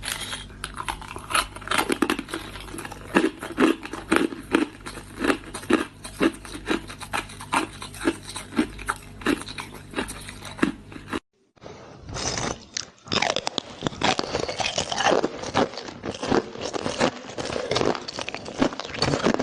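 Close-up crunching of hard ice being bitten and chewed, a rapid irregular run of sharp crunches. It breaks off for about half a second around eleven seconds in, then resumes.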